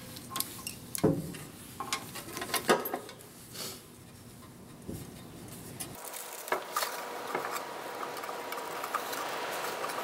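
Sheet-metal instrument case and small wiring parts being handled: scattered clicks, taps and knocks. About six seconds in the sound changes abruptly to a steady hiss with a faint high hum and a few small clicks.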